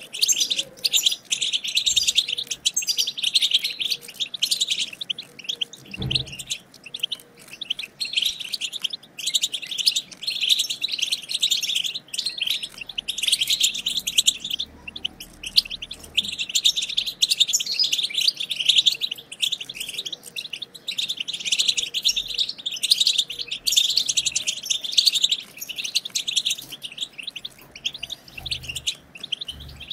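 A group of European goldfinches chattering and twittering: dense, rapid, overlapping high chirps with short pauses. A soft low thump about six seconds in.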